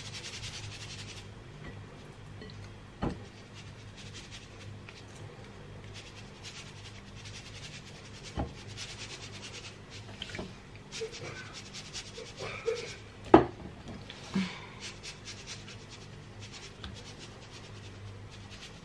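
Salt shaken from a shaker onto raw steak in a glass bowl, a dry hissing patter that stops about a second in, then soft rubbing as hands work the salt and pepper into the meat, with a few knocks and clunks, the loudest a sharp one about thirteen seconds in.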